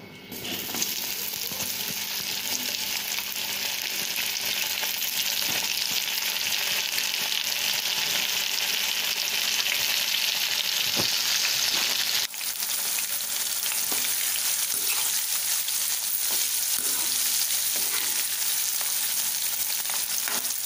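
Cornflour-coated baby corn pieces deep-frying in hot pure groundnut oil, a steady dense sizzle that starts about half a second in as the pieces go into the oil. The sizzle dips briefly about twelve seconds in, then carries on.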